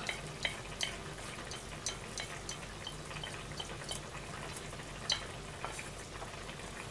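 Light clicks and taps of porcelain dishes as cooked greens are moved from one plate onto a small dish, over a steady low hum and a soft crackle, typical of a pot simmering on the stove.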